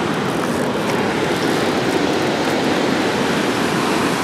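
Steady rush of water pouring through Saylorville Dam into the current below, an even noise with no break.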